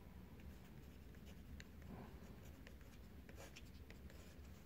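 Fountain pen nib scratching faintly on paper in a series of short strokes as a word is written in capital letters.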